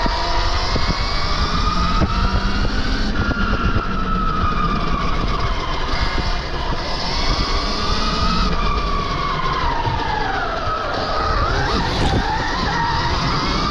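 Stark Varg EX electric dirt bike on the move: its electric motor whines, rising and falling in pitch as the rider speeds up and slows down, over a heavy rush of wind noise and frequent short knocks.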